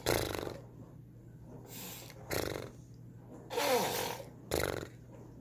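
A toddler making silly breathy noises, four short bursts, with a little voice in one of them just before the fourth.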